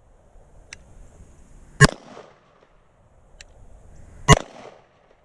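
Two 9mm pistol shots from a SIG Sauer M18, about two and a half seconds apart, each with a short echo trailing off.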